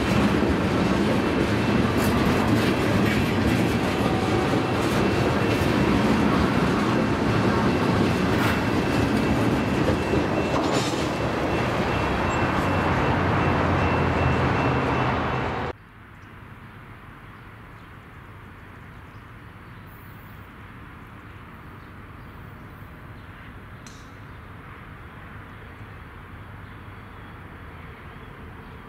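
Freight train tank cars rolling past on the rails with a dense rumble, wheels clicking over the rail joints and a faint steady high squeal. About 16 seconds in the sound cuts off abruptly to a quiet, steady outdoor background.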